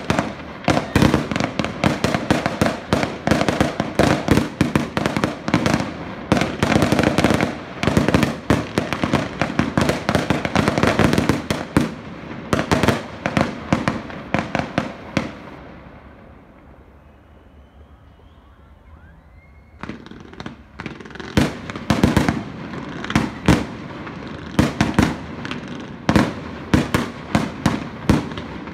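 Fireworks display: aerial shells bursting in a rapid, dense string of bangs. The bangs die away about fifteen seconds in to a short lull, then start again thick and fast about twenty seconds in.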